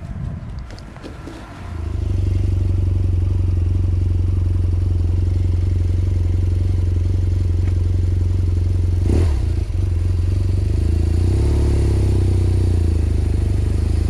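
BMW R1200GS boxer-twin engine running steadily under way after a quieter first two seconds, with a brief knock about nine seconds in.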